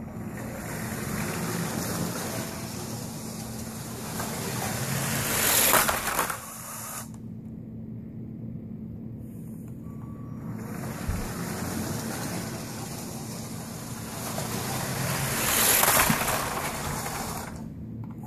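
Lego toy train's motor whirring along plastic track, growing louder as it approaches, twice. Each approach ends in a short clatter as it hits the parked Lego trucks.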